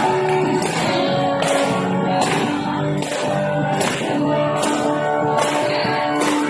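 Praise and worship band music: held instrumental notes over a steady beat of percussion hits, roughly one every three-quarters of a second.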